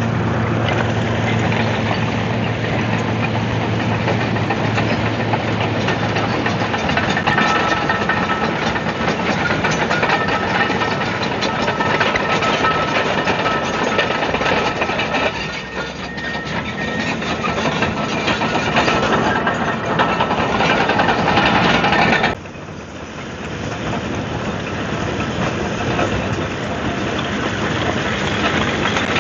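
Komatsu D155AX-7 crawler bulldozer at work, its diesel engine running hard with the clatter of steel tracks. The noise dips briefly around the middle, then drops suddenly about 22 seconds in and builds back up.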